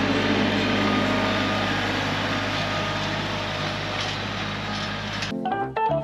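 A vehicle engine running steadily with an even hum. It cuts off suddenly about five seconds in, and music begins.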